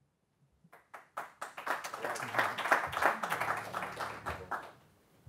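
Audience applauding: the clapping starts about a second in and dies away near the end.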